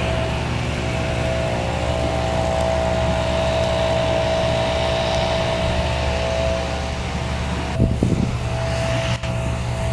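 A steady engine drone, as of a motor vehicle running, with a brief louder knock about eight seconds in.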